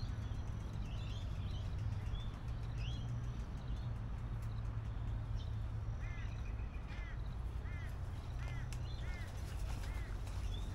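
Birds calling outdoors: scattered short chirps, then a run of about seven repeated arching calls, roughly one every half second or so, over a steady low rumble.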